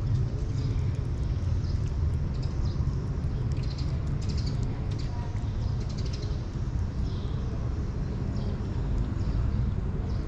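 Kitten chewing and lip-smacking on wet cat food, a scatter of small wet clicks over a steady low rumble.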